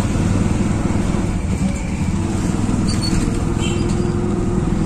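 Auto-rickshaw engine running steadily while under way, heard from inside the open passenger compartment, with road and traffic noise around it.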